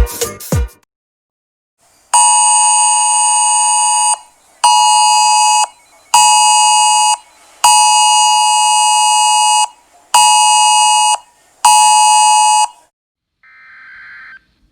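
Emergency alert attention tone for a tornado warning: a loud buzzing two-tone signal in a long-short-short pattern, sounded twice (about two seconds on, then two one-second beeps, with half-second gaps). This is the cadence of a phone's Wireless Emergency Alert.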